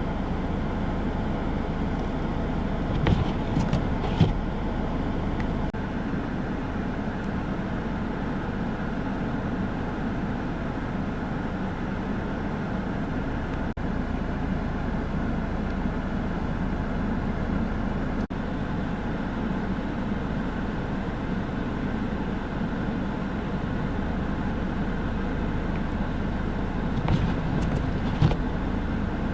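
Steady road and engine noise of a moving car, heard from inside, with a few brief clicks about three seconds in and again near the end.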